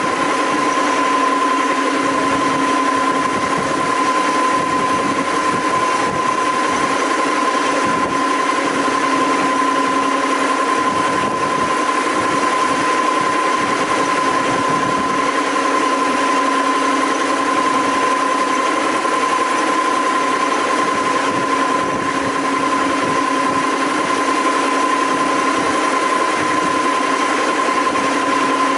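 Quick Wood RO1100 brush sander running steadily with its conveyor feed belt moving: an even machine noise with a constant high-pitched whine.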